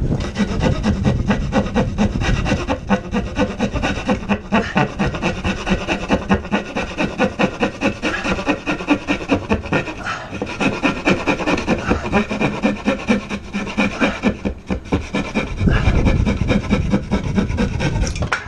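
Narrow-bladed hand saw cutting through a wooden board in steady back-and-forth strokes, about three a second. The strokes get louder in the last few seconds as the cut nears the far edge.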